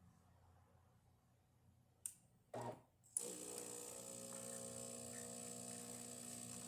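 DeLonghi Magnifica S bean-to-cup espresso machine brewing a shot: a near-silent pause, then two clicks with a brief whirr between them about two to three seconds in, then its pump starts a steady hum as the coffee is pushed through.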